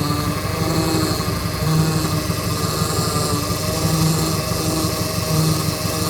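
Chevrolet Opala engine running at idle, with the noise from its hydraulic power steering pump, a low hum that swells and eases every second or two. It is the sign of a power-steering fault that makes the steering a little stiff, even though the fluid is full.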